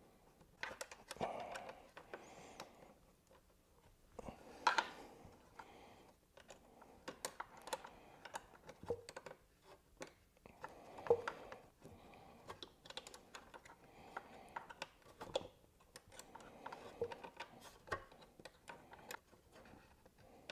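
Irregular light clicks and taps of a hex socket and wrench on a bracket bolt being turned and tightened by hand, with a few sharper metallic knocks.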